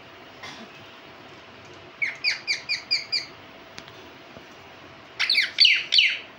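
Pet Indian ringneck parakeet calling. About two seconds in there is a quick run of six short chirps, and near the end a louder burst of calls.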